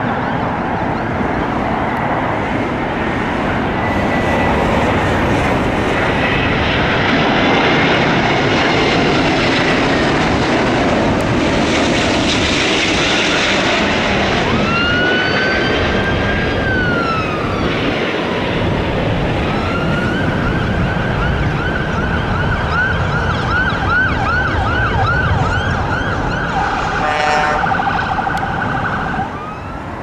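An emergency vehicle siren sounds over a steady rushing background noise. Around the middle it gives a long wail that rises and falls once; later it switches to a fast up-and-down yelp until near the end.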